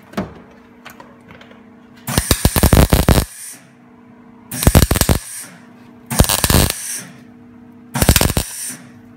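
Esab MIG welder arc in four short welding bursts, the first just over a second long and the other three about half a second each, as a replacement rear quarter panel is welded onto a car body.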